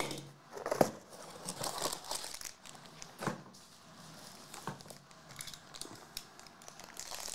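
Sealed black foil pouch crinkling and tearing as it is handled and cut open, with scattered sharp crackles.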